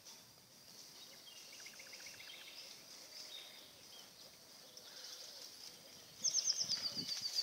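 Birds singing over a quiet background: a short run of chirps about a second in, then near the end a loud, fast trill of falling notes. Under the trill come dull thuds of horses' hooves on a sandy track as the horses draw near.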